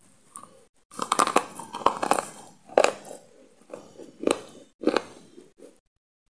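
Close-up biting and crunchy chewing of a hard, chalky block. A long crackling bite comes about a second in, followed by several separate sharp crunches as it is chewed.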